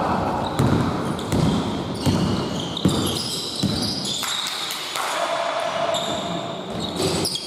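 A basketball is dribbled on an indoor court, bouncing about every three-quarters of a second, with sneakers squeaking on the floor.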